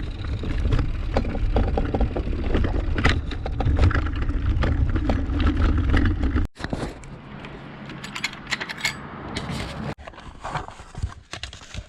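Heavy wind rumble on the microphone with light metallic rattles and clicks, cutting off suddenly about six and a half seconds in to a quieter stretch of scattered clicks and clinks.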